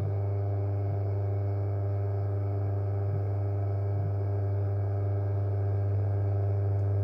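JW Ratcliffe and Sons electric pottery wheel's motor running, a steady deep hum with an even level.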